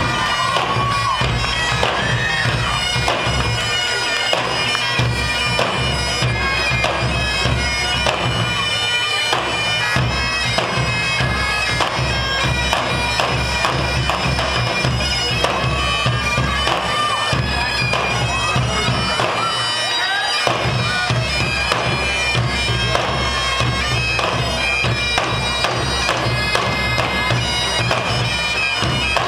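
Two sets of Highland bagpipes playing a tune over their steady drones, with large barrel drums beating along underneath.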